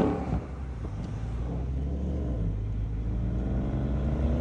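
A vehicle engine drops back to a steady low drone after revving, then its revs slowly climb again near the end.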